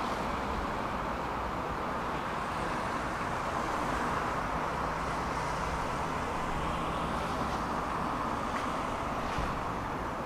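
Steady road traffic noise, an even hiss of passing cars with no single event standing out.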